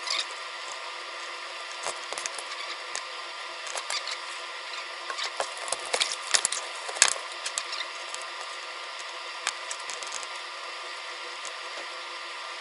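Scattered clicks and knocks of a small Sigma-5 servomotor being swapped by hand: cable connectors unplugged and refitted, and the motor and a cardboard box handled on a wooden desk. The clicks are thickest about halfway through, over a steady hiss.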